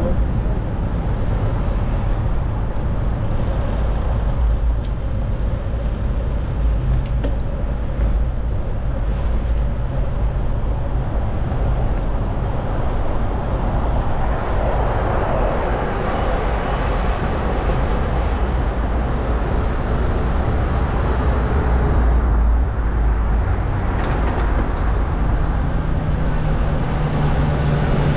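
City road traffic heard from a moving bicycle, with a constant low rumble. A vehicle passes more loudly about fifteen seconds in, and a low engine hum comes in near the end.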